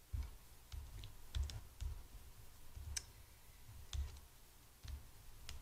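Scattered light clicks and taps of small paper pieces and double-sided tape being handled and pressed down on a plastic-covered cutting mat, with irregular soft low thumps.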